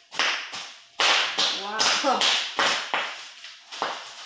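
Hands rubbing and tapping over the hard plastic shell of a football helmet: a quick run of short scraping strokes, about two or three a second.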